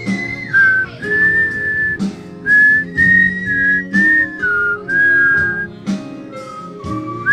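A tune whistled into a microphone: clear held notes that step up and down in pitch, each lasting about half a second to a second, over backing music with guitar.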